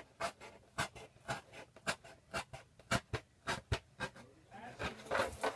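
Razor blade cutting into a cardboard box in short scratching strokes, about two a second, with a longer rasping scrape near the end.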